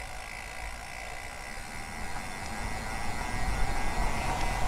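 Steady whir and low rumble of a road bike being ridden, with wind on the microphone, slowly growing louder toward the end.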